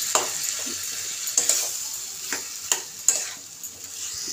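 Boiled potatoes frying in sizzling mustard oil in a kadai while a metal spatula stirs them and breaks them up, scraping and knocking against the pan several times.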